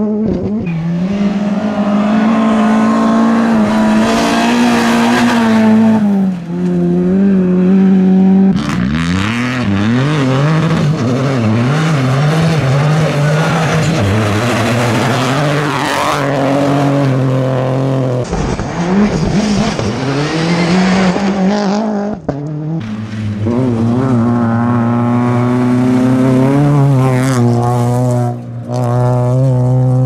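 Rally cars on a gravel special stage, one after another, engines revving hard at full throttle and falling away on lifts and gear changes. Loose gravel sprays from the tyres as they slide past.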